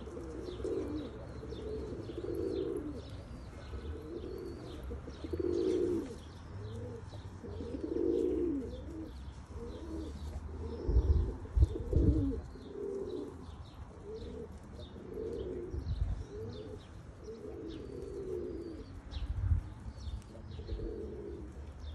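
Domestic pigeons cooing over and over, a low coo every second or two, with thin high chirping behind and a few dull low thumps around the middle and later.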